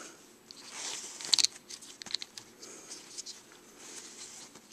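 Light handling noise of a bowstring serving tool and its thread being worked through a loop by hand: soft rustling and scattered small clicks, with a sharper pair of clicks a little over a second in.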